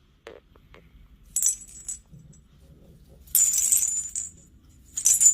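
Small metal jingle bells hung on a Christmas tree jingling in three short bursts, set off as the tree is disturbed.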